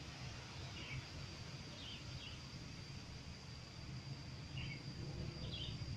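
Open-air ambience: a steady low rumble and a thin, steady high tone, with about five short bird chirps scattered through it, two of them close together about two seconds in.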